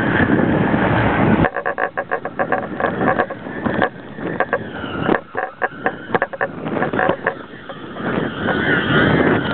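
Wind rushing over a camera carried on a power-kite line. From about a second and a half in until about eight seconds, the rush gives way to a rapid, irregular rattling flutter with a faint whine over it, and then the rush returns.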